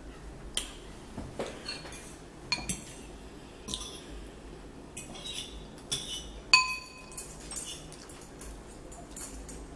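Metal forks clinking and scraping against ceramic bowls while eating noodles: scattered clinks, some ringing briefly, the loudest about six and a half seconds in.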